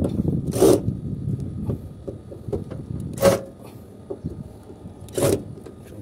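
Cordless drill-driver run in three short bursts, a couple of seconds apart, backing out the terminal-block screws of an air-conditioner unit, with a low rumble of handling noise in the first two seconds.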